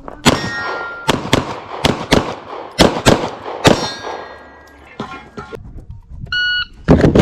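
Glock 48 9mm pistol firing about eight quick shots in under four seconds, with steel plates ringing on several hits. Near the end an electronic shot timer gives its start beep, and a loud knock follows right after.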